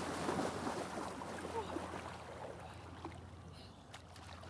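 Water splashing as two people wade quickly into a very cold lake, fading as they get deeper.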